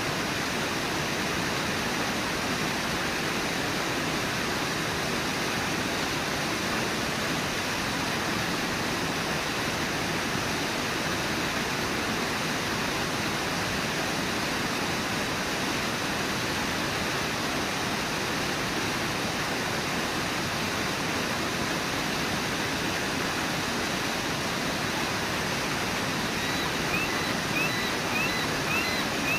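Steady roar of the Brooks River pouring over Brooks Falls, an even rush of falling water. A few short high chirps come in near the end.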